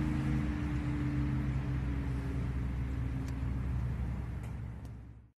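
Small boat's motor running steadily under way, with a steady hiss over it. It cuts off abruptly near the end.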